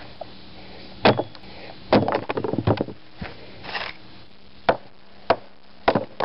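A hatchet chopping and splitting a block of wood into thin sticks. There are several sharp, separate chops, with a quick run of smaller knocks about two seconds in and three chops about half a second apart near the end.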